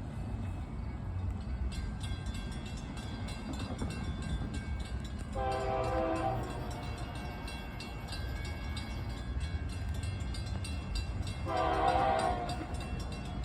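Locomotive air horn sounding two separate blasts of about a second each, several seconds apart, over a steady low rumble of the passing train. The blasts are a horn show for onlookers.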